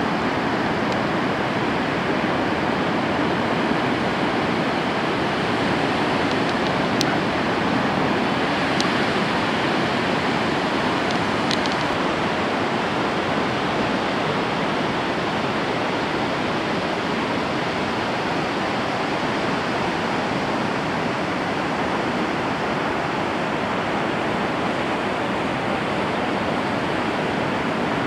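Ocean surf breaking along the shore: a steady, even rush of waves.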